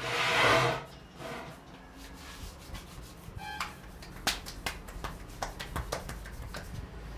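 Head massage: hands rubbing over hair and scalp close to the microphone, a loud rubbing swish in the first second, then a run of sharp taps and clicks in the second half.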